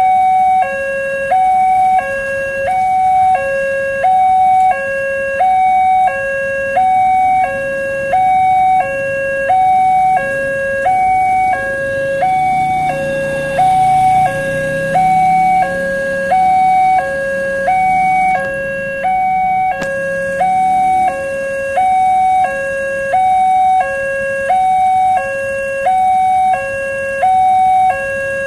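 Railway level-crossing warning siren sounding a steady two-tone electronic alarm, switching between a lower and a higher tone about once a second: the barriers are down for an approaching train. Underneath, a motorcycle engine rumbles briefly near the middle.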